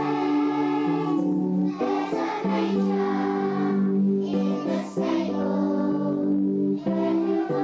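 A group of young children singing a song together in unison, holding each note for about a second before moving to the next.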